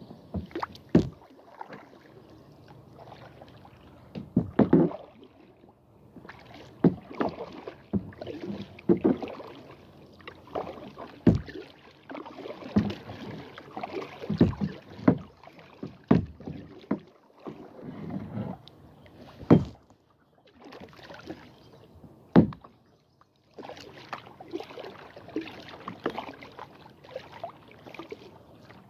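Kayak paddling: the paddle blades swish and splash through the water in uneven strokes every second or two, with a few sharp knocks now and then.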